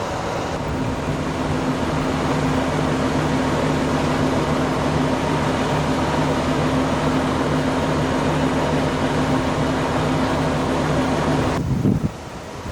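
Steady mechanical hum of a running engine or motor, holding a fixed pitch with a faint high whine. It cuts off abruptly about a second before the end.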